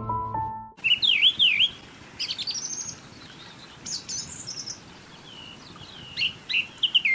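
A few notes of music cut off suddenly under a second in, then wild birds sing outdoors: a string of whistled chirps and swooping notes from more than one bird, loudest just after the music stops and again near the end.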